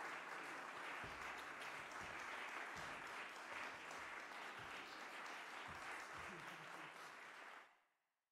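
Audience applause, a steady patter of clapping, fading out near the end.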